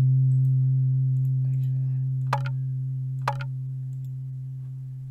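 A percussion sample from a beat project plays back as one low, pitched tone that rings on and slowly fades. Two mouse clicks sound about two and three seconds in.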